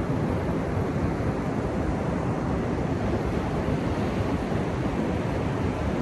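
Ocean surf breaking on a sandy beach: a steady low rush of water with no single wave standing out.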